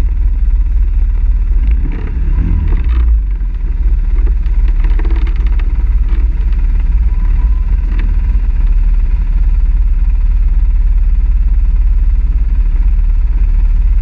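ATV engines running at low speed, a steady low rumble, while a quad creeps over fallen branches on the trail.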